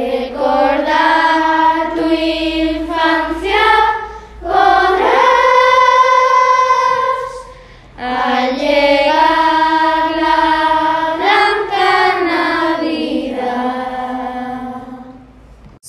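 Children's choir singing a Christmas carol, in sung phrases with long held notes and short breaks about four and eight seconds in.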